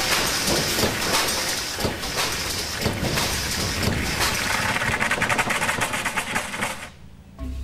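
Car pulling away with loose metal parts and grit clattering out from beneath it onto the road: a dense rattling and clattering that stops suddenly near the end.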